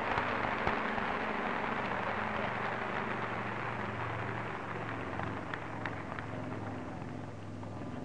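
Crowd applauding with dense, steady clapping and a low hum underneath. The clapping slowly fades and cuts off suddenly at the very end.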